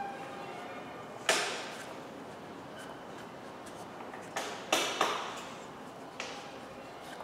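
Sharp knocks echoing in a workshop: one about a second in, then three close together around the middle, each with a short ring-out.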